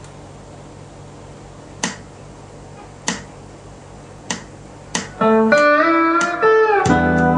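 Amplified Sho-Bud pedal steel guitar starting to play a slow melody about five seconds in, its notes and chords sliding in pitch as they are bent. Before it comes in there is only a steady low hum and four sharp clicks.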